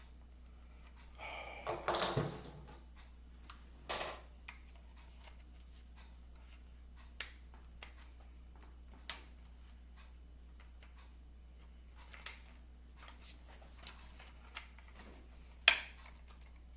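Hard plastic toy parts clicking and scraping as a gun piece is twisted and forced into its socket on a Stridor toy horse: scattered single clicks, a louder burst of rubbing about two seconds in, and a sharp snap near the end, the loudest sound.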